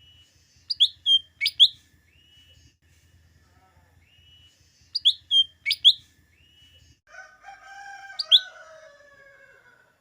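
Cucak daun (lesser green leafbird) singing: two bursts of three or four loud, sharp whistled notes a few seconds apart, each led in by softer rising whistles. Near the end a lower, drawn-out call slides down in pitch under one more sharp note.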